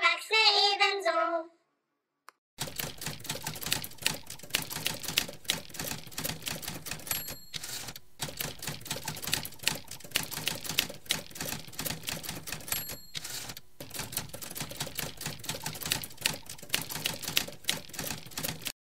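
The sung jingle ends in the first second and a half. After a short pause, typewriter keys clatter fast and unevenly for about sixteen seconds, with a bell-like ding twice, and the clatter cuts off suddenly near the end.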